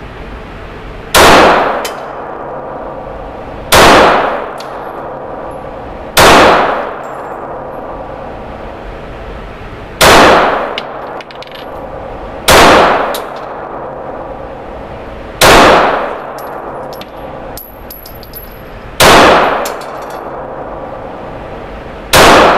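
Glock 19 9mm pistol fired eight times in slow, aimed succession, one shot every two and a half to three and a half seconds. Each report rings on briefly in the indoor range.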